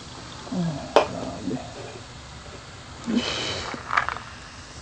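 Carbonated soft drink poured from an aluminium can into a glass, with a sharp click about a second in and a short fizzing hiss a little after three seconds.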